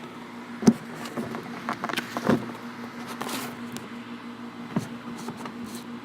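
Camera packaging being handled: scattered clicks and rustles, one sharp click near the start, over a steady low hum.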